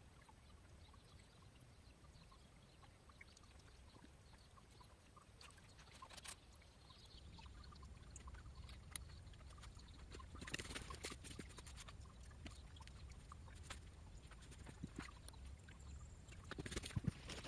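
Faint trickle of water running into the stone basin of a shrine's temizuya (purification fountain). A few small clicks and knocks come around the middle and near the end.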